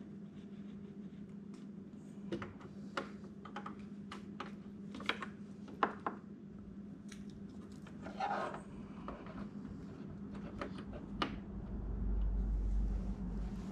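Small clicks, taps and rustles of hands handling wiring and metal connectors on an open power amplifier chassis, over a steady low hum, with a brief scrape about eight seconds in and a low rumble near the end.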